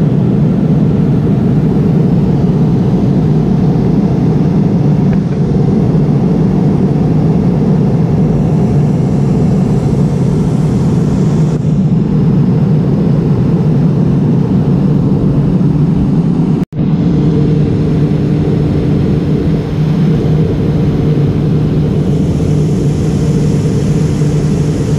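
Steady cabin noise of a McDonnell Douglas MD-88 in flight, heard from a seat over the wing: a deep airflow and engine rumble with a steady hum from its rear-mounted Pratt & Whitney JT8D turbofans. The sound cuts out for an instant about two-thirds of the way through.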